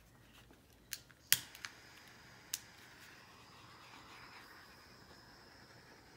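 Handheld butane torch: a few sharp clicks, the loudest about a second and a half in, as it is picked up and lit, then a faint steady hiss of the flame as it is passed over wet acrylic pour paint.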